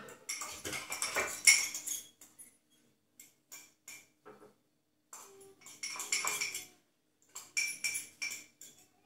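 Cutlery and dishes clattering and clinking as they are handled, in three bursts of rapid clicks with scattered single ticks between; the first burst, near the start, is the loudest.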